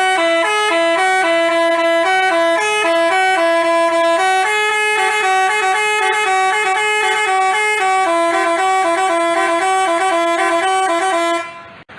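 A basuri telolet bus horn playing a tune as a quick string of stepping horn notes, loud and unbroken, cutting off shortly before the end.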